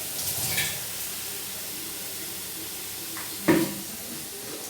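Pointed gourd and poppy-seed paste sizzling steadily in mustard oil in a pan. A single sharp utensil knock comes about three and a half seconds in, with lighter clatter near the start.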